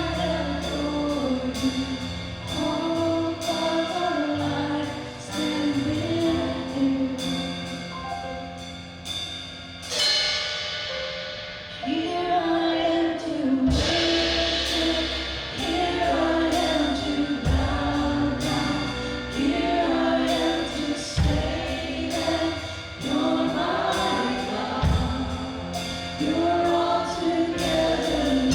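Live worship music: singers leading a song over a band with bass and drum kit, keeping a steady beat. The band thins out briefly about ten seconds in, then comes back in.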